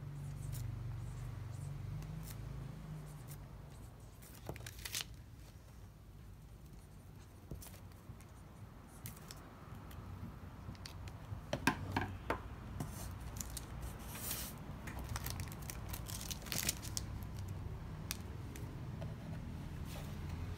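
Quiet handling sounds of packing on a wooden table: a brush pen scratching across a card, then the crinkle and rustle of thin wrapping paper and light taps as cards are set down, busiest in the second half, over a low steady hum.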